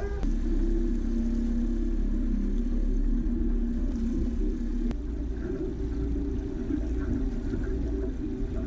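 Boat outboard motor running steadily at low trolling speed, a constant low rumble and hum. There is a sharp click about five seconds in, where the engine note shifts slightly.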